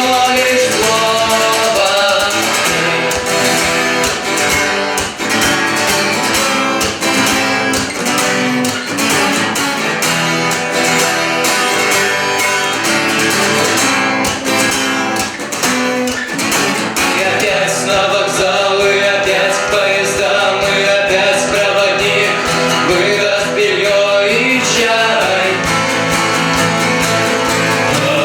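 Live band performing a song: acoustic guitar strumming with a voice singing over it.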